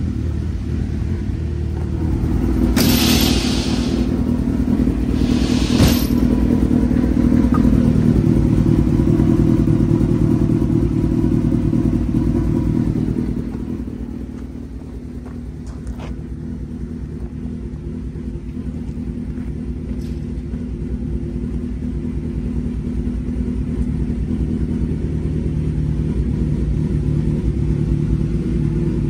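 A large engine idling steadily with a low rumble, with two short bursts of metal clatter about 3 and 6 seconds in.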